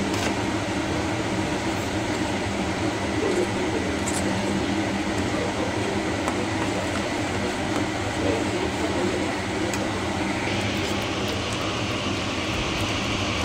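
Steady machine hum with a rushing noise over it; a higher hiss grows louder about ten seconds in.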